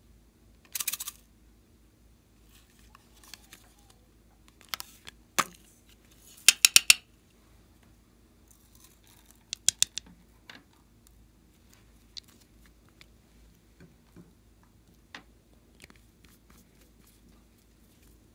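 Small plastic and glass containers handled close to the microphone: sharp clicks and taps, with quick rattling runs of clicks about a third of the way in and again about halfway, then scattered single clicks.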